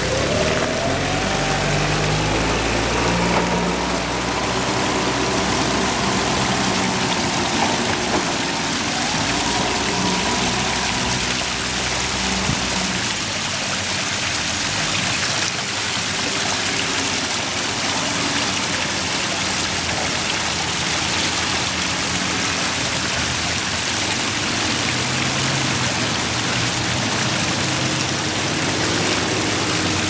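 Steady rush and splash of a small tiered rock waterfall spilling into a koi pond. A motor vehicle's engine runs in the background for roughly the first ten seconds, then fades out.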